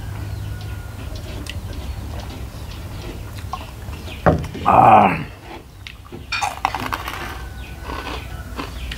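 Close-up eating sounds: chewing and small clicks of a plate and food, over a steady low hum, with one loud noisy burst about four and a half seconds in.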